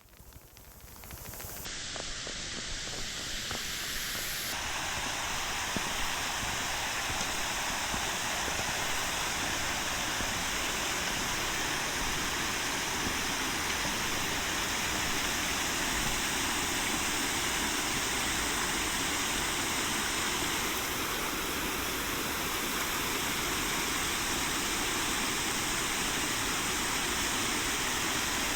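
Waterfall running, a steady rush of falling water that fades in over the first couple of seconds.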